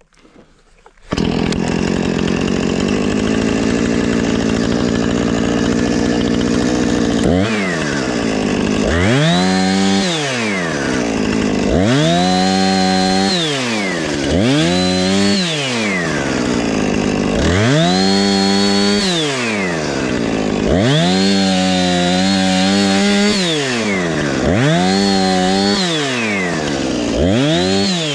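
Husqvarna Rancher 455 two-stroke chainsaw limbing a felled pine: it comes in about a second in and runs steadily, then is revved up and down about seven times as each branch is cut off.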